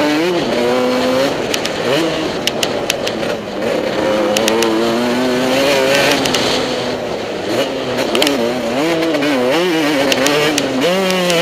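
Motocross bike engine revving hard and easing off again and again, its pitch climbing and dropping every second or two with throttle and gear changes, with scattered sharp ticks and clatter.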